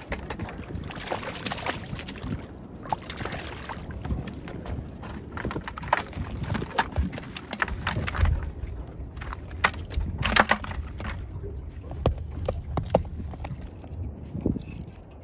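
Wind rumbling on the microphone, with many scattered sharp clicks and knocks and a few short rustling bursts, typical of fishing tackle being handled.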